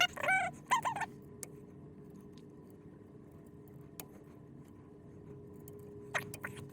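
Bambu P1P 3D printer sitting powered on: a wavering, warbling tone in the first second, then a steady low hum with a few light clicks.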